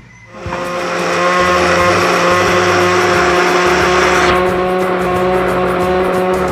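Electric countertop blender starting up about half a second in and running steadily, its motor whine mixed with the grinding of avocado chunks and ice. About four seconds in, the hissing grind thins out as the mixture turns smooth, while the motor tone carries on.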